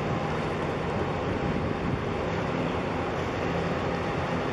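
Large container ship passing close under way, its engine giving a steady low drone with faint steady hums.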